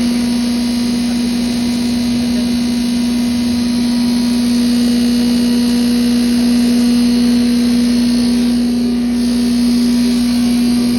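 7.5 HP multipurpose spice grinding machine running steadily, with a loud, even hum.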